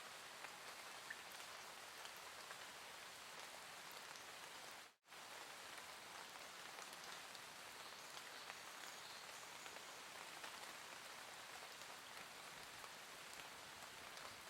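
Faint, gentle rain: a steady hiss dotted with small drop ticks. It cuts out completely for a split second about five seconds in.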